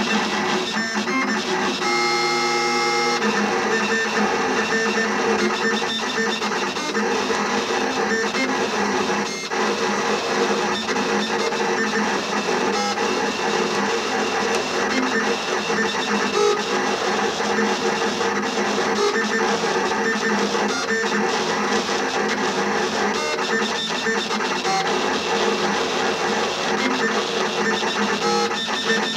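Cutting plotter drawing with a pen: its stepper motors run continuously as the pen carriage darts across and the pinch rollers drive the paper back and forth, with guitar music underneath.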